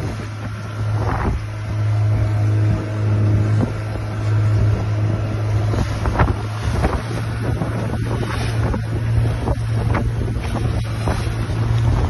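A small wooden fishing boat's engine running at a steady speed, a constant low hum. Water splashes and slaps against the hull, and wind buffets the microphone.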